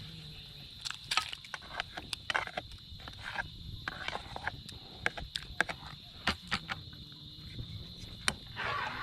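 A steady high insect drone, like crickets, runs under many irregular sharp clicks and taps.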